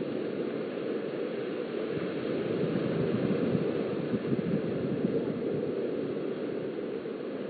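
Surf washing onto a sandy beach mixed with wind, a steady low rush with no distinct breaks, heard through a webcam's microphone.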